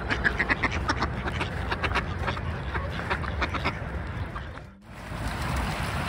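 Mallard ducks quacking in a rapid series of calls, which thin out after about three seconds. A brief drop-out just before the end gives way to a steady rush of flowing water.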